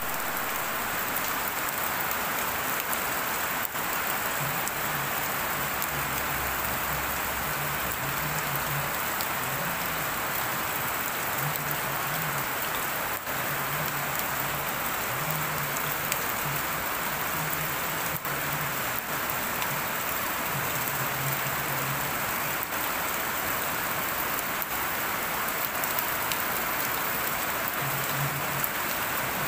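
Steady rain falling on wet concrete pavement.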